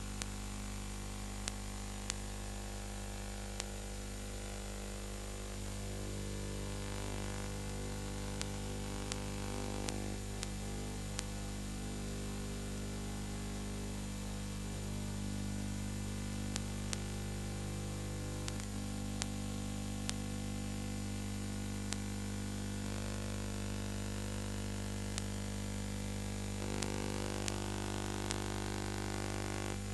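Steady electrical mains hum with many overtones over a background hiss, with scattered faint clicks every second or two. This is line noise on the soundtrack of a silent film transfer, not sound from the filmed scene.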